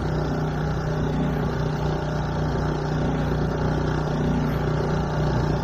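Small outboard motor of a dinghy running steadily at cruising speed, a constant even hum, with water rushing and splashing against the hull.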